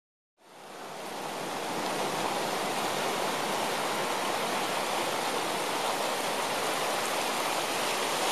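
Muddy flash-flood water rushing down a creek channel, a steady rushing noise that fades in over the first second or so.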